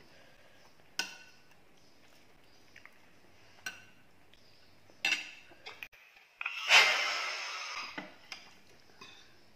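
Metal spoon and hands working on ceramic plates during a meal: a few sharp clinks, then one louder scrape that lasts about a second, about two-thirds of the way through.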